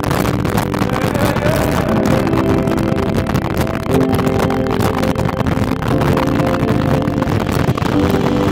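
Motorcycle engine running steadily at highway cruising speed, with wind rushing over the microphone.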